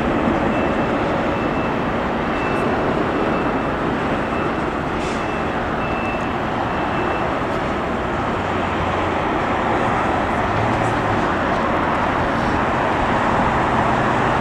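Steady roar of airport and road traffic: distant jet airliner engines mixed with cars passing on the road. A faint high beeping repeats through the first half.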